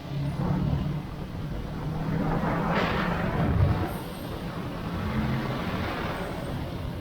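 Kawasaki Ninja 650's parallel-twin engine running under way. A broad rush of noise swells to its loudest about three seconds in, then eases off.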